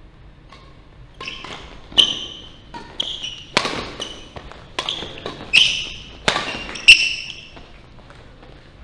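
Badminton doubles rally: about ten sharp racket hits on the shuttlecock, one every half-second to second, from about one second in until about seven seconds, the loudest near the end. Each hit rings briefly in the large hall.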